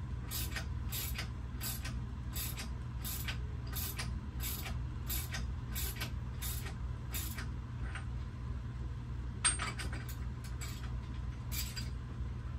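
Ratchet wrench turning a harmonic balancer installation tool to press the balancer onto the crankshaft of a Ford 7.3 L Godzilla V8: a ratcheting stroke about twice a second, pausing around eight seconds in, then a sharp click and a few more strokes, over a steady low hum.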